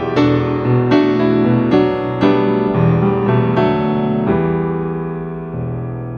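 Background piano music: a run of struck notes and chords that ends on a held chord fading away.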